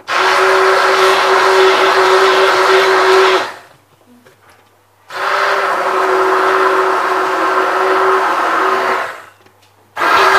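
Hand-held immersion blender running at high speed in a steel cup, blending a smoothie of frozen berries, banana, chia seeds and coconut milk, with a steady motor whine. It runs for about three and a half seconds, stops for over a second, runs again for about four seconds, stops, and starts again near the end.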